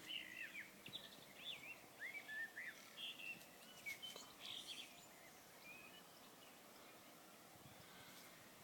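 Tui singing faintly: a run of short whistled notes that slide up and down, with a few higher clicks mixed in. The song stops about five seconds in.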